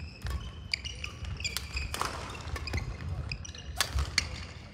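Indoor badminton hall sounds: frequent short, high sneaker squeaks on the court floor, mixed with sharp racket-on-shuttlecock clicks.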